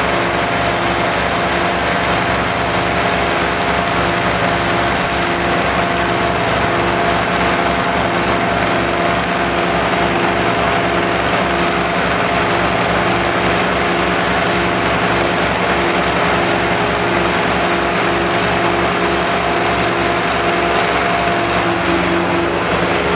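Engine of a remote-controlled tracked crawler running steadily as it moves a modular home section, with a constant high whine over a regular pulsing beat.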